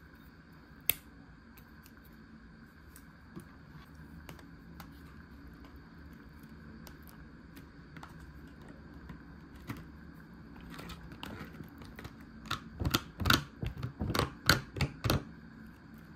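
Sharp clicks and taps from handling food packaging: scattered single clicks, then a run of about eight loud, crisp clicks over two or three seconds near the end.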